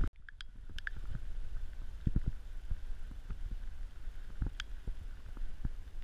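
Low wind rumble and handling noise on a body-worn action camera's microphone, with irregular dull thumps from the wearer's footsteps on a wet stone path, the loudest about two seconds in and again past four seconds.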